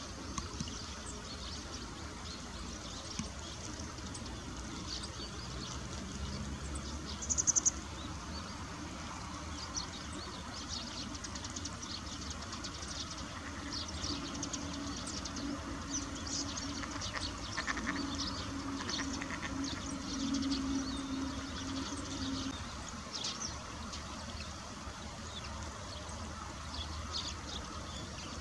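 Spot-billed duck foraging in dry leaf litter and stems: scattered light crackling and rustling from its bill, over the steady wash of flowing river water. A short high chirp about seven seconds in, and a faint steady low hum from about 14 to 22 seconds.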